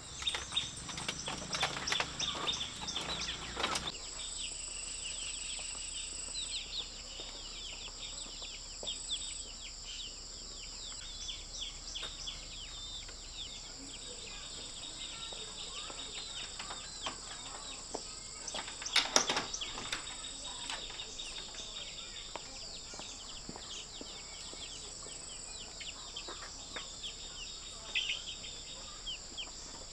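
Outdoor rural ambience: a steady high drone of insects with many small bird chirps over it, and clusters of sharp clicks and knocks in the first few seconds and again about two-thirds of the way through.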